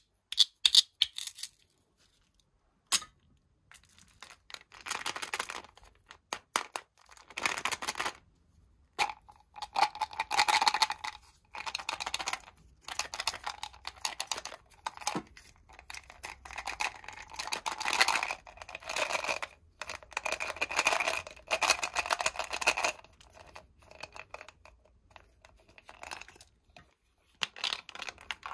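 Close-up handling of candy packaging: the velcro fastening of a plastic strawberry-shaped container is pulled apart near the start. After that come repeated rasping, tearing bursts as a Mentos tube is handled and opened.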